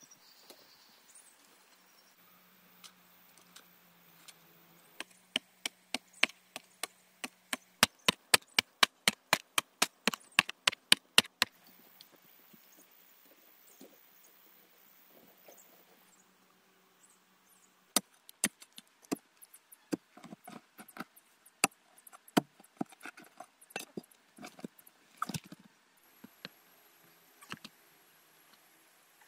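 Hand tool chopping: an even run of sharp strikes, about three to four a second, for several seconds. After a pause comes a looser, irregular series of blows.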